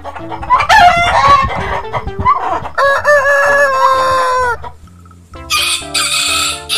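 Rooster crowing: a long cock-a-doodle-doo that rises, holds and falls away about four and a half seconds in, followed by a rougher, hissy call near the end.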